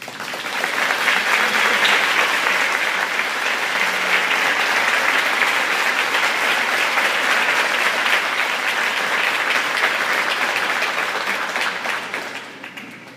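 Audience applauding, swelling up quickly at the start, holding steady, and dying away near the end.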